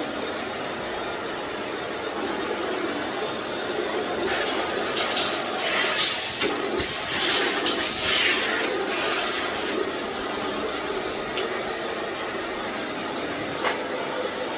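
Eureka WhirlWind bagless canister vacuum running steadily while it sucks up dry dog food. Between about four and nine seconds in there is a loud rattling hiss as the kibble goes up the wand, and a few single clicks come near the end.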